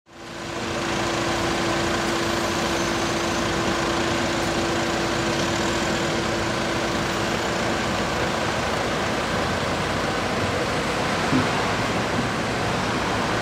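Caterpillar wheeled excavator's diesel engine running steadily, with a steady hum that drops out about nine seconds in and a short knock a couple of seconds later.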